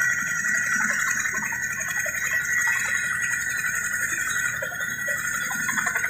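Twin-turboshaft Chinook helicopter running on the ground with its rotors turning: a steady high engine whine holding one pitch, with scattered crowd voices over it.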